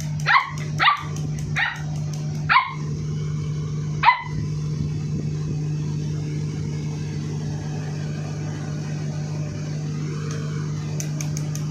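Labrador retriever puppy barking, five short high yips in the first four seconds, each falling in pitch, then it stops; a steady low hum carries on underneath.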